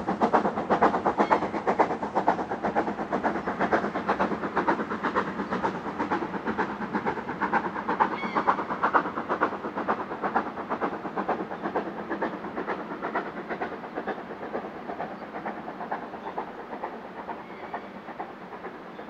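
Black 5 4-6-0 steam locomotive working hard, its exhaust beating in a rapid, steady rhythm while it climbs a steep gradient. The beats fade gradually as it draws away.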